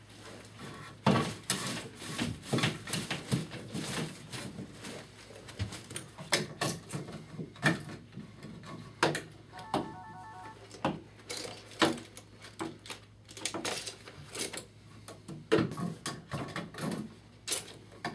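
Irregular clicks, knocks and scrapes of a fish tape and a taped-on electrical cable being handled and pulled up through a wall cavity into a switch box.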